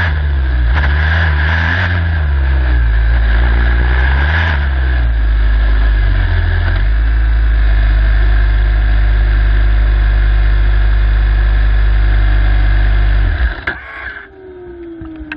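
Turbocharged Formula Student race car engine heard on board: revs rising and falling over the first few seconds as the car slows, then running steadily at low revs in neutral. About thirteen seconds in the engine is switched off and cuts out suddenly, leaving a quieter falling whine as something spins down, and a few clicks.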